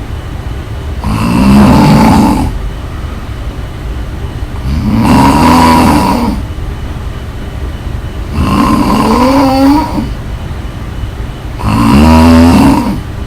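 A person snoring loudly in a steady rhythm: four rasping, pitched snores on the in-breath, about one every three and a half seconds, each wavering in pitch, with a quieter breath out between them.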